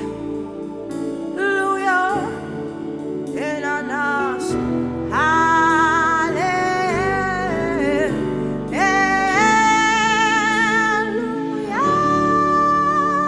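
Worship music: a voice sings a series of long held notes in separate phrases over sustained accompanying chords.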